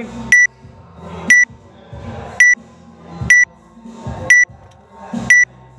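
Electronic countdown timer beeping once a second, six short high beeps counting down the last seconds before a workout starts.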